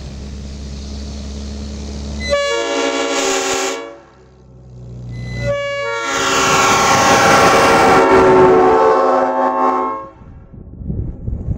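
Combined locomotive air horns on a pickup truck, a Leslie S-3B and a Leslie S-3P three-chime together with a Nathan AirChime P5 five-chime, all with cast bells, sounding a chord as the truck drives past. A steady engine drone comes first, then a blast about two seconds in, a brief toot, and a long loud blast from about six seconds to ten seconds whose pitch slides a little as the truck passes.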